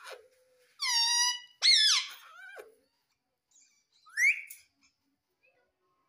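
Indian ringneck parrot calls: a held, even-pitched squawk about a second in, a louder call that rises and falls soon after, and a short rising screech just past four seconds.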